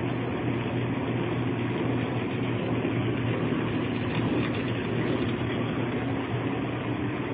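Casa Herrera HDCG heavy-duty corn grinder's 20-horsepower motor running steadily with its grinding stones removed, a constant hum over an even whir.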